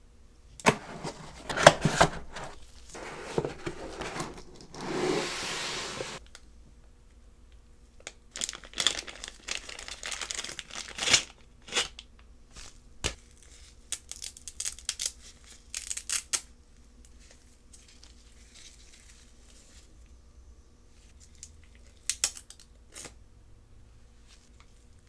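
Keyboard packaging being opened by hand: crinkling and tearing for the first six seconds, ending in one longer, steady tear. Then bursts of rustling and sharp handling clicks, thinning to a few isolated clicks.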